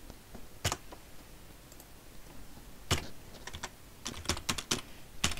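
Keys tapped on a computer keyboard while numbers and labels are entered into a spreadsheet. One keystroke comes less than a second in, then a pause of about two seconds, then several quick runs of keystrokes.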